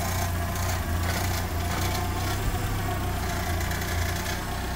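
A 1990 Volkswagen Golf Driver's four-cylinder petrol engine idling steadily, heard over the open engine bay.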